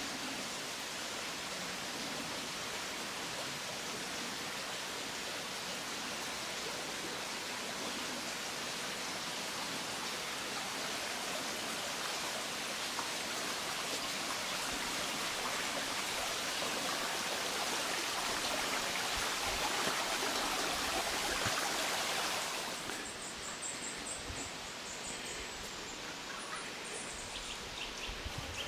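Kluczwoda stream water rushing over stones, a steady hiss that slowly grows louder, then falls off sharply about three quarters of the way through.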